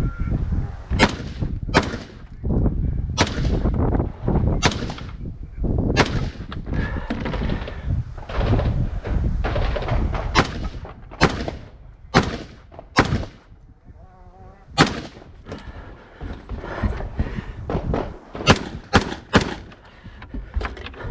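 Rifle firing single shots during an IPSC rifle stage: about fifteen sharp cracks in uneven strings with pauses between them, including four quick shots near the end. A steady rustling noise fills the gaps between shots.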